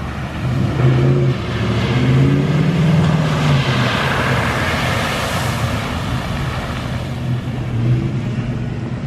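A truck's engine revs as it drives through deep floodwater, with a rushing hiss of water spray that swells as it passes about four to five seconds in, then fades.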